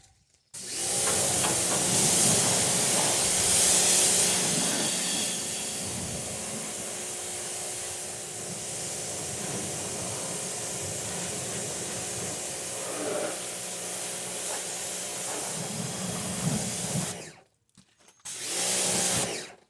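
Pressure washer spraying the underside of a tractor fender pan: a loud, steady hiss of the water jet with the pump's hum underneath. It cuts off abruptly about seventeen seconds in, then sprays again briefly near the end.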